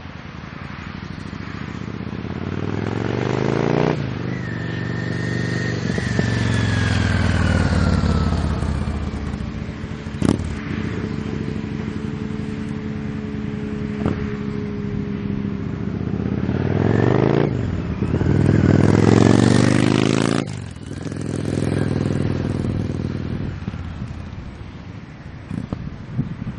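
Yamaha Drag Star 650's air-cooled V-twin running through a Roncar aftermarket exhaust, revving up and dropping back several times, steady for a few seconds in the middle, then fading near the end.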